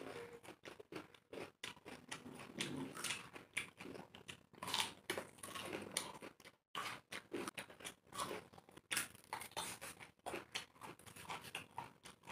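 Two people chewing and biting fruit fast, grapes and crisp green Thai jujubes: a busy, irregular run of short crunches and mouth clicks.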